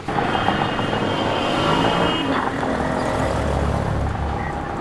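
Road traffic noise heard from a moving vehicle. A steady high tone sounds for the first two seconds or so, and a deeper rumble swells near the end as a truck passes alongside.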